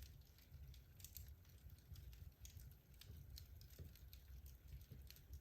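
Faint crackling of wood logs burning in a fireplace: irregular small snaps and pops, several a second, over a low rumble.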